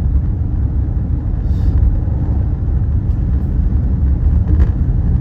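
Steady low rumble of a car driving, engine and road noise heard inside the cabin.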